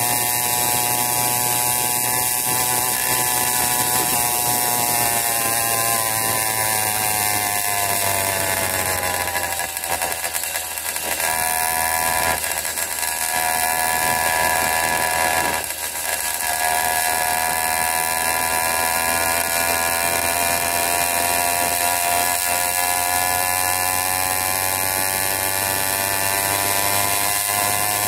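80cc Wildcat PK80 two-stroke bicycle engine running steadily under way. Its note sags and drops away briefly about ten seconds in and again around sixteen seconds in, then picks back up.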